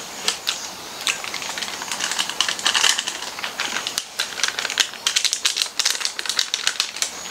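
Small Milo Nuggets chocolate cereal balls rattling out of a plastic snack packet into a palm: a dense run of light clicks with the packet crinkling.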